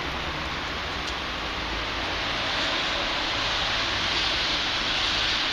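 Steady rushing street noise, growing louder and hissier about halfway through.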